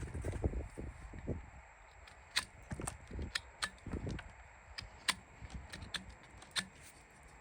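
Farrier's tools working a horse's hoof: irregular sharp clicks and snaps, with low dull thumps mostly in the first second.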